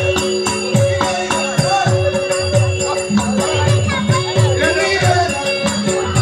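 Folk song performance: a singer over a held drone, a hand drum beating about twice a second, and a jingling rattle.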